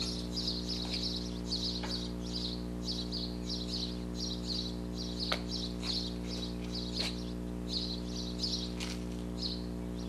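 Small bird chirping over and over, two or three short high chirps a second, over a steady low hum, with a couple of sharp clicks about five and seven seconds in.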